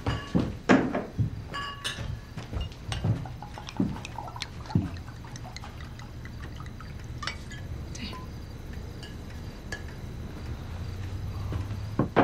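Wine poured from a bottle into a glass, with sharp glass clinks and knocks, most of them in the first five seconds, over a steady low hum.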